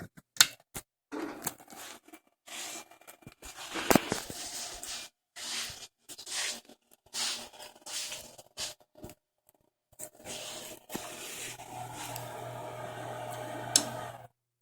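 Irregular scraping, rustling and sharp clicks, as of things being handled close to the microphone. About ten seconds in a steady low hum starts, and it cuts off suddenly near the end.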